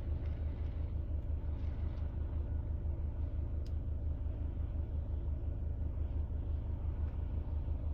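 A car engine running steadily: an even, regular low throb with a faint rushing noise over it.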